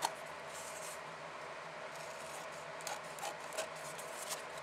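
Scissors trimming excess decorative paper from the edges of a foam core board, the blades rasping through the paper. A sharp snip comes right at the start, a brief rustle about a second in, and a few lighter snips around three seconds in.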